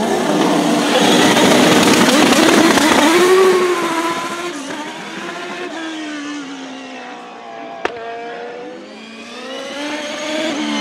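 The 1993 Penske-Chevrolet PC-22's 2.65-litre turbocharged Chevrolet V8 is run hard past at speed, its pitch rising and dropping through gear changes, then fading as the car moves away. A single sharp crack comes about eight seconds in, and near the end the engine builds again as the car approaches once more.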